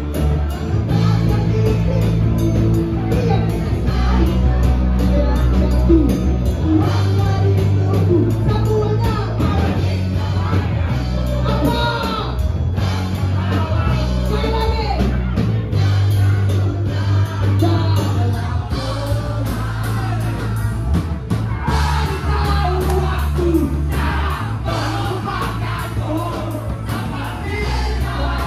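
Loud band-style pop music with a steady bass and beat, and voices singing along over it, with some shouts from a crowd.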